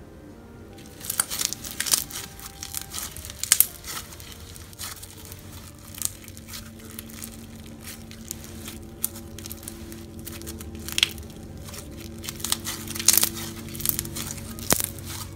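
Clear glitter slime being stretched, folded and squished by hand, giving a run of sticky crackles and small pops that start about a second in.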